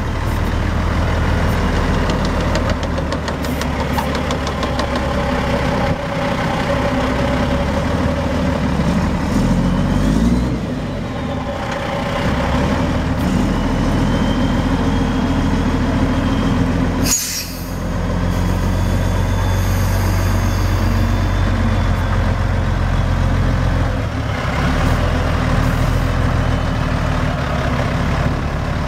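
A 1995 Volvo WIA semi tractor's 12.1-litre Volvo D12 diesel engine running steadily as the truck is driven slowly. The engine speed rises and falls around ten seconds in, and there is a brief sharp sound about seventeen seconds in.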